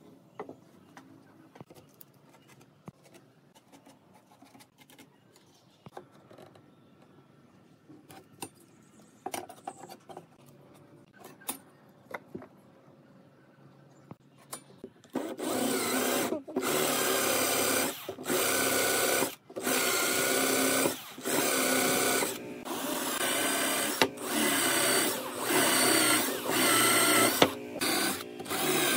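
Cordless drill boring into a wooden frame joint, run in a string of bursts of about a second each with short pauses between, starting about halfway through. Before it, only faint clicks and taps.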